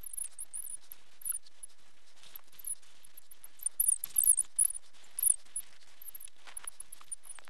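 Fast-forwarded sound of small screws being taken out of a Galaxy S4 Active's frame with a precision screwdriver: scattered quick clicks and taps under thin, high-pitched squeaky chirps from the sped-up audio.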